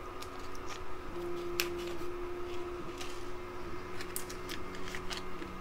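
Light, irregular clicks and ticks of small metal shims and flanged bearings being picked up and handled between fingers. A faint steady tone sits behind them, changing pitch every second or so.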